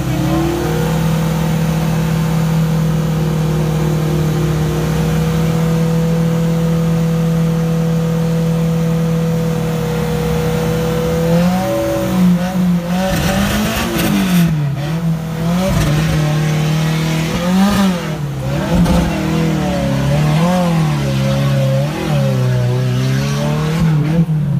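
Off-road 4x4 pickup's engine held at a steady high pitch for about ten seconds, then revved up and down again and again as the truck strains in a mud pit.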